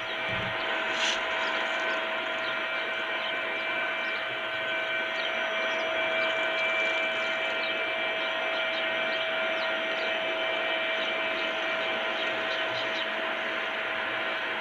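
A phone speaker plays a recording of the constant hum from a wastewater treatment plant, recorded from a fourth-floor flat with the windows closed: a steady drone with one strong held tone and a few fainter higher tones over a hiss. The residents suspect a turbine or other plant equipment that is not working properly.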